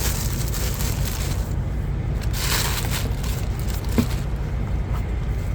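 Handling of a new cordless impact wrench and its packaging: a brief crinkling rustle and a sharp click, then a fainter tick, over a steady low rumble.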